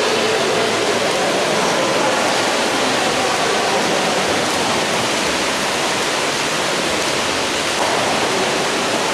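Steady wash of noise from a water polo game in an indoor pool: water churned by swimming players, with faint voices in the background.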